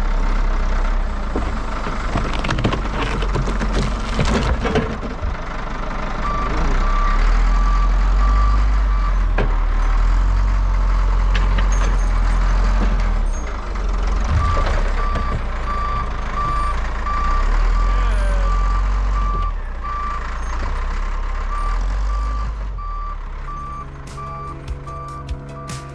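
Wheel loader's diesel engine working under load, with its backup alarm beeping steadily from about six seconds in. A few sharp knocks sound in the first half.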